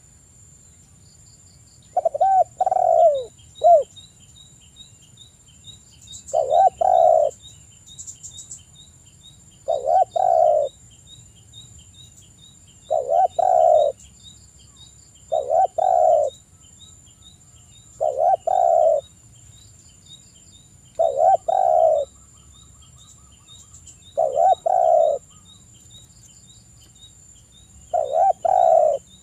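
Spotted dove (tekukur) giving its cooing call, a short phrase of a few coos repeated about every three seconds. Behind it runs a faint, rapid high ticking.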